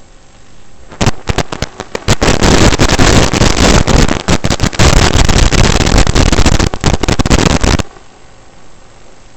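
Loud crackling radio static from the analog FPV video link's audio channel. It comes in about a second in, swells at about two seconds and cuts off abruptly near the end, leaving a fainter steady hiss.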